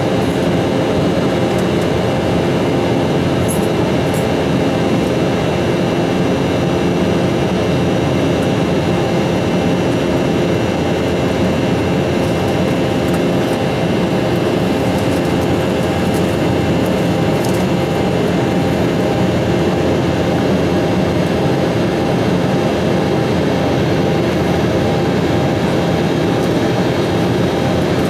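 Steady cabin noise of an Embraer E195 climbing after takeoff, heard from a window seat over the wing: its GE CF34-10E turbofans at climb power and the rush of airflow, a dense even noise with a few steady hums over it.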